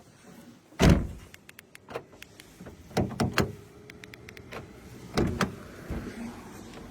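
A heavy thump from the car about a second in, the loudest sound, then a few sharper knocks and clicks around the middle and again later, with a faint steady hum in the last second.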